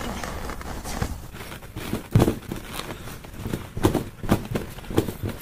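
Children jumping on a garden trampoline: irregular soft thuds of feet landing on the trampoline bed, the loudest about two seconds in.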